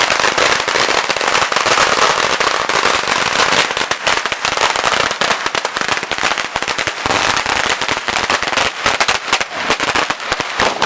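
Strings of firecrackers going off in a long, dense, continuous crackle of sharp bangs.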